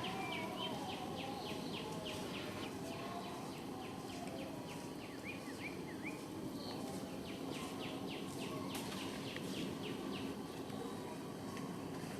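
Small birds chirping: many short, quick chirps, several a second, over a steady outdoor background hiss.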